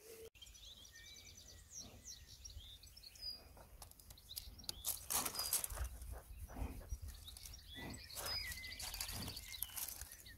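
Small birds chirping and trilling in the background, with irregular rustling and scraping close to the microphone, the loudest a little past the middle.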